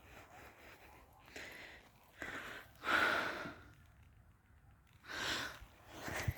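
A few loud breaths or sighs close to the microphone, coming about a second apart, the loudest one about three seconds in.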